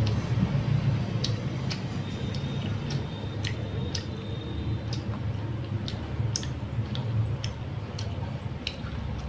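Scattered sharp pops and crackles from sausages and cheese cooking in an electric grill pan, irregular and a few a second, over a steady low rumble of street traffic.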